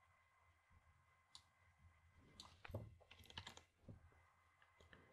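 Faint computer keyboard clicks over near silence: a few scattered taps, with a short cluster of them in the middle.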